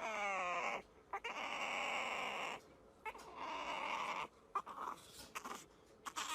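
A pet animal crying out: one falling, pitched cry at the start, then several rougher, noisier calls with short gaps between them.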